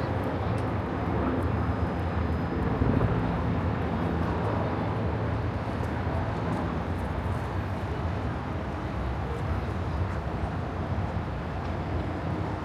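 Steady low engine rumble with a low droning hum, easing slightly in the second half.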